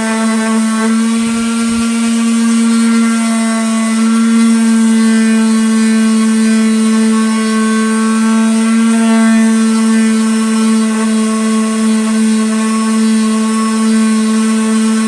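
Electric power sander running steadily at a constant pitch while sanding a round of ash wood.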